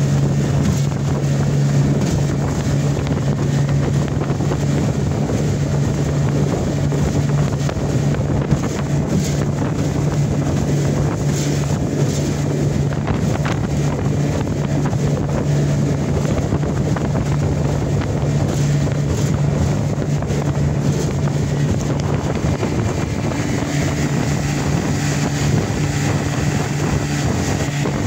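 A 1991 Johnson 20 hp two-stroke tiller outboard running steadily at full speed, pushing a 14-foot aluminum boat. Its even drone sits under wind buffeting the microphone and water rushing past the hull.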